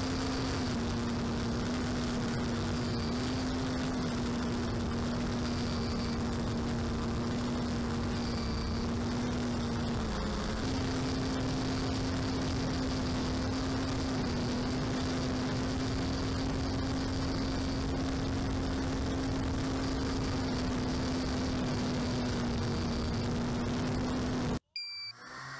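Onboard recording of a small electric model aircraft's motor and propeller: a steady hum that shifts slightly in pitch with the throttle and dips briefly about ten seconds in, under steady wind rush over the microphone. It cuts off suddenly near the end.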